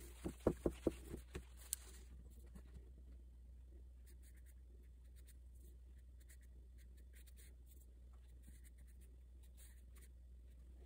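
A quick run of about six soft thumps and a click in the first two seconds, then a flat paintbrush laying gouache onto watercolour paper in faint, scratchy strokes.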